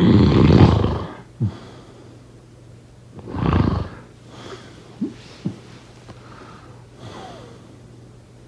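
A person snoring in their sleep: two loud rasping snores about three seconds apart, the first the louder, with a few brief faint sounds in between over a steady low hum.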